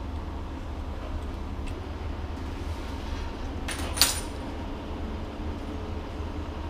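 A single brief metallic clink about four seconds in, over a steady low hum.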